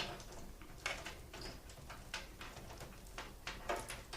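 Hard-drive data cables and their plastic connectors being handled, with scattered light clicks and rustling, about half a dozen sharper clicks in all.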